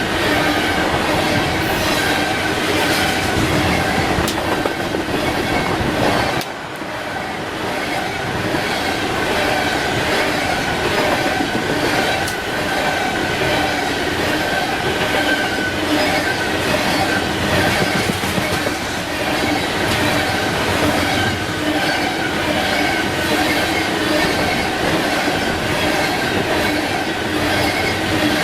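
A train's railroad cars rolling past, wheels clattering on the rails under a steady high tone. The sound dips briefly about six seconds in.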